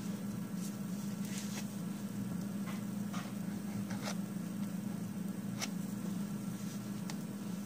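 A scraper drawn across a metal nail-stamping plate, spreading and scraping nail polish over the engraved design: several faint, short scrapes and ticks, over a steady low hum.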